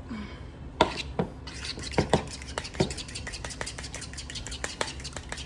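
A metal fork knocking and clinking in a bowl: a few separate sharp knocks, then quick, steady tapping from about a second and a half in, as when stirring or beating with a fork.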